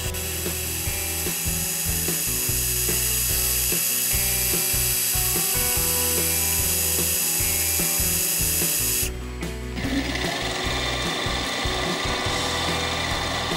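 Metal lathe spinning a brass part while a cutting tool turns its end. About nine seconds in the sound changes abruptly to a twist drill boring into the end of the spinning brass.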